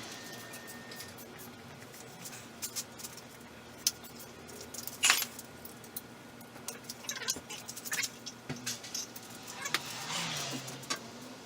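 Irregular light metallic clinks and clicks, with one sharper click about five seconds in: tools and small metal parts being handled.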